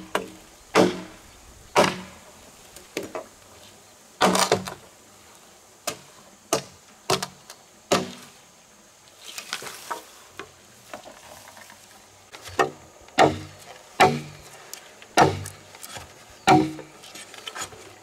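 Repeated chopping strikes, irregularly about one a second, each with a dull thud. There is a gap of a few seconds in the middle with only faint rustling.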